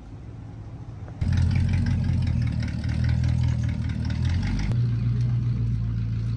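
A car engine running loudly. It comes in abruptly about a second in, and its low drone shifts to a steady, slightly higher note about two-thirds of the way through.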